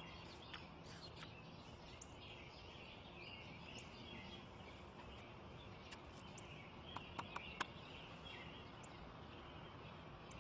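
Faint outdoor ambience of small birds chirping in the background over a low steady hiss, with a quick run of four soft clicks about seven seconds in.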